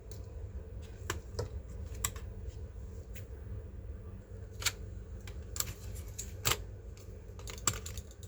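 Irregular clicks and taps of small hard plastic and metal parts being handled while a laptop is opened up to fit RAM and an SSD, about eight sharp clicks spread unevenly over a low steady hum.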